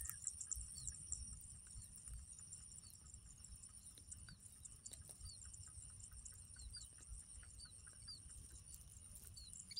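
Faint open-field ambience: a steady high insect drone with short high chirps scattered throughout, over a low rumble of wind on the microphone.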